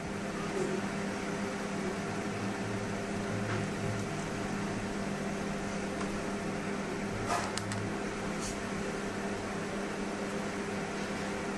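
Steady electrical hum of a running room appliance such as a fan or air conditioner, with a few light clicks about seven and eight seconds in.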